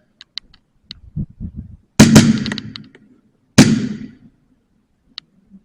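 Two loud, sharp airsoft Hi-Capa gas blowback pistol shots about a second and a half apart, echoing. A few fainter, short high ticks sound around them.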